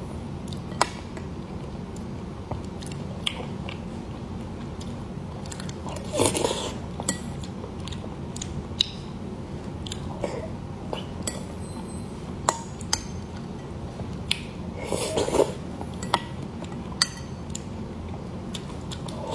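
Close-miked eating of a soft, sticky mixed rice bowl: chewing and mouth sounds, with a metal spoon clinking and scraping against a glass bowl in sharp little ticks. Louder mouthful noises come about six seconds in and again around fifteen seconds.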